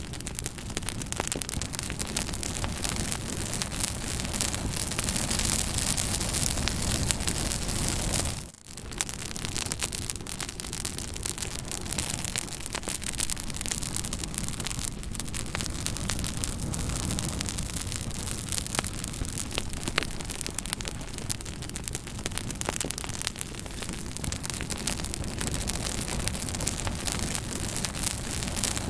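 Fire crackling steadily: a constant hiss full of sharp pops and snaps, with a brief drop in level about eight and a half seconds in.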